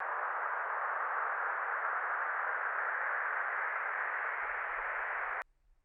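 A steady hiss of noise that starts abruptly and cuts off sharply about five seconds in.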